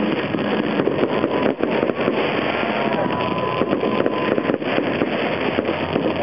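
Aerial fireworks bursting in quick succession: a dense, unbroken rush of crackling with many sharp pops and bangs layered over it.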